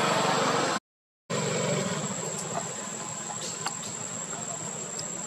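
Steady high drone of insects, with a low hum underneath that fades after about two seconds. The sound cuts out completely for half a second about a second in.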